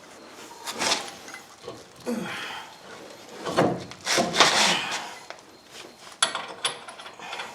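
Hand work on a truck's front suspension parts: scraping and clunking as the steering knuckle and ball joint stud are lined up and the nut is started, then several light metallic clinks near the end.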